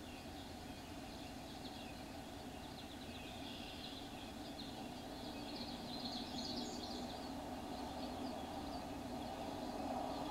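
Outdoor ambience with many quick, high bird chirps over a steady low hum.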